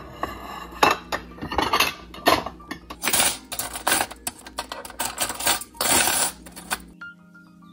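Ceramic bowls clinking as they are stacked on a cupboard shelf, then metal forks clattering against each other as they are dropped into a cutlery holder, in a quick run of clinks densest in the middle. The clatter stops shortly before the end.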